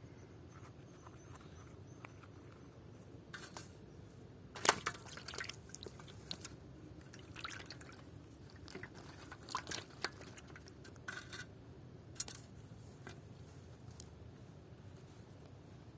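Irregular small splashes and drips of water, a dozen or so short sharp sounds spread unevenly, the loudest about five seconds in, over a low steady background.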